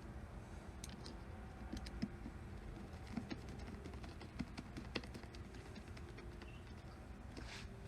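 Faint, irregular small clicks and ticks of screws being driven back into the plastic case of a portable jump-starter power pack with a screwdriver.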